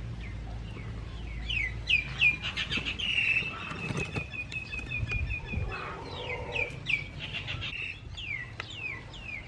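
Birds chirping: quick falling chirps repeated over and over, with one held high note in the middle.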